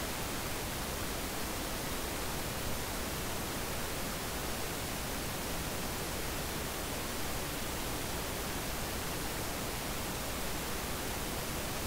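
Steady, even hiss with nothing else in it: the background noise of a microphone recording a screen capture while nobody speaks.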